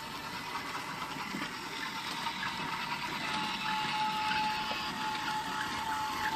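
Small battery-powered electric motor of a remote-control toy train running, a steady whir with a thin whine that becomes louder and slightly lower about three seconds in.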